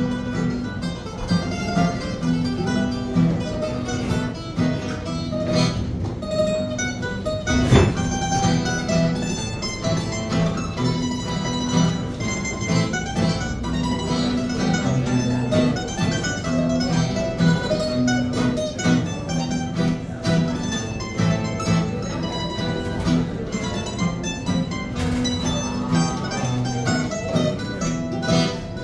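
Live acoustic string trio of two acoustic guitars and a mandolin playing a traditional Italian tune: plucked mandolin over strummed guitar chords with a steady beat. One sharp hit about eight seconds in.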